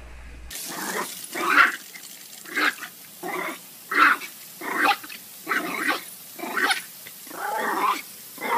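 Small black dog barking repeatedly at a spraying garden sprinkler, about a dozen short barks roughly one a second, one drawn out near the end.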